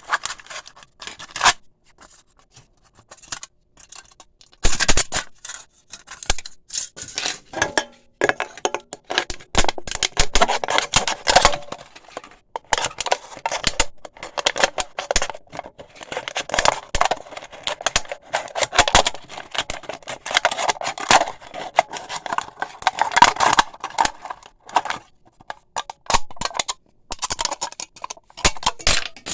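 Razor blade cutting and scraping through thin aluminium pop cans: a few scattered clicks, then about five seconds in, long runs of rapid scratchy strokes with short pauses and a brief squeal, a grating sound likened to nails on a chalkboard.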